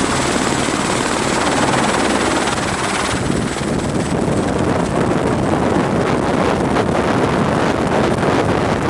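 AS350 Écureuil turbine helicopter running on the ground with its rotor turning: a steady turbine whine over the rotor thrum. About three seconds in, the high whine drops away and a heavy rush of rotor downwash buffets the microphone, gusting more toward the end as the helicopter gets ready to lift off.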